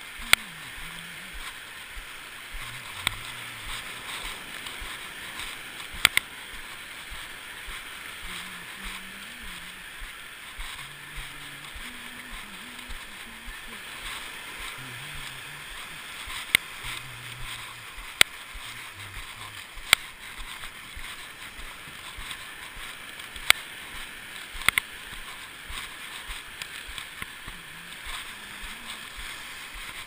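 Surf washing up the beach as a steady hiss, heard through a waterproof camera housing, with about ten sharp knocks at irregular intervals from the housing bumping as the camera swings on its neck cord.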